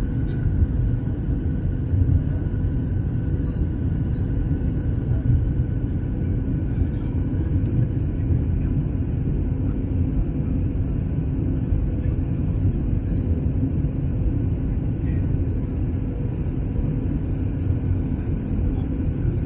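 Jet airliner cabin noise on descent: a steady low rumble of engines and airflow, with a faint steady hum above it.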